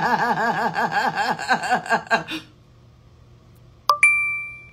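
A woman laughing in a quick run of rising-and-falling "ha" pulses that stops about halfway through. Near the end comes a single bright ding, a struck, bell-like tone that rings and fades.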